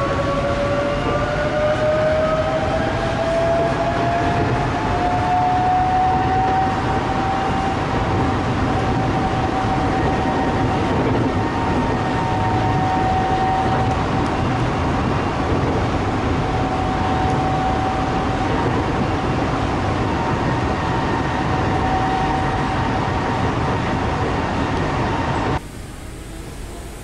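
Inside an Innovia Monorail 300 train on Bangkok's rubber-tyred Yellow Line monorail, running at speed: a steady rumble with a drive whine that rises in pitch over the first several seconds as the train picks up speed, then holds steady while it cruises. Shortly before the end the sound cuts abruptly to something much quieter.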